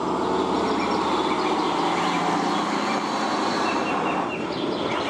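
Heavy MAN dump truck's diesel engine running steadily as the truck drives over gravel.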